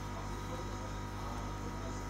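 Steady electrical hum with a faint high whine, unchanging throughout, with no distinct taps or clicks.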